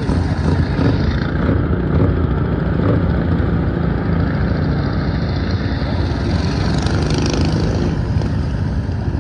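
Racing lawn mower engines running loud and steady, their pitch shifting slightly as they are throttled during the race.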